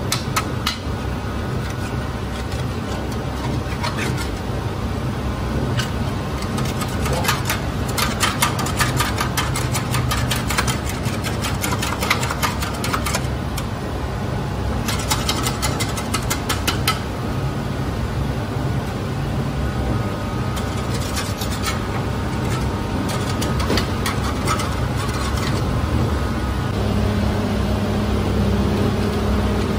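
Steady machine hum, with bursts of rapid scraping and knocking as a scraper works dough paste off the metal hook and rim of a spiral dough mixer. A deeper steady hum comes in near the end.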